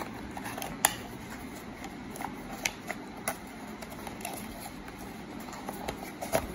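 Packaging being handled: a handful of light clicks and taps as a cardboard box insert and a plastic tray are moved and pressed, with the sharpest click about a second in.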